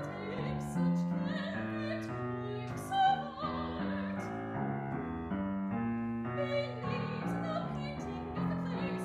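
A grand piano playing a classical accompaniment, with an operatic voice singing sustained notes with vibrato over it at times.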